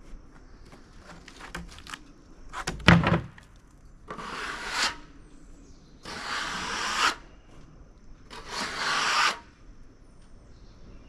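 Something rasps across a dry, sawn cottonwood surface in three strokes of about a second each, after a heavy knock of wood about three seconds in.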